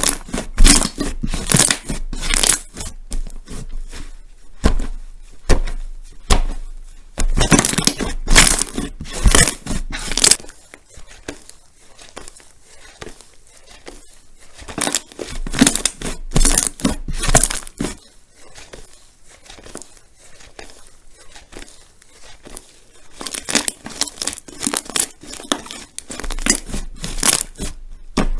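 Crunchy slime being squeezed and pressed by hand, giving dense crackles and pops in bursts a few seconds long with quieter stretches between.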